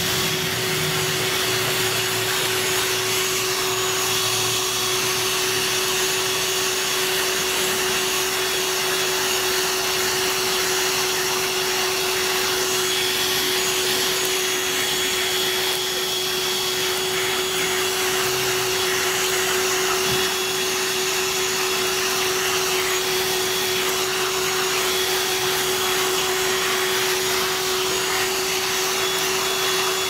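Black & Decker PAV1205 Pivot 12 V handheld car vacuum running steadily as its nozzle is drawn over a carpeted car floor mat: a constant rush of air with a steady motor whine at one pitch.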